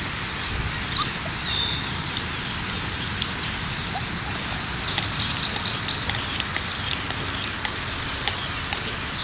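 Four-week-old Alaskan Malamute puppies making faint whimpers and small yips as they play over a steady background hiss, with a run of short clicks and rustles in the second half.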